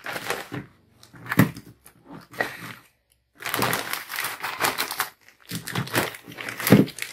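Clear plastic bags of dried fish crinkling and rustling as they are handled, in a run of bursts with short gaps between them.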